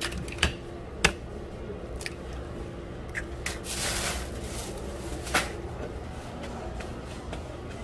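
Eggs being cracked and dropped into metal egg-bread molds: a handful of sharp knocks of shell, the loudest about a second in, and a short hiss near the middle, over a steady low hum.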